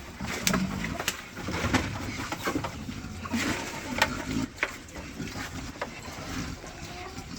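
Farmyard animals making short, low calls over and over, mixed with scattered sharp clicks.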